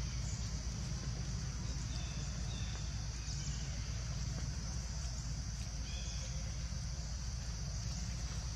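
Outdoor background: a steady high hiss like insects droning and a low rumble of wind or handling, with a few faint short chirps about two and a half and six seconds in.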